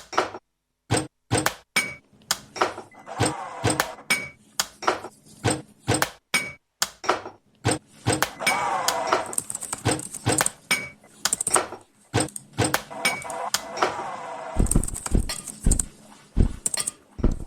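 Experimental sample-based music built from workplace sounds: a steady rhythm of sharp clicks and knocks, with wavering pitched tones laid over it now and then, and deep thumps joining near the end.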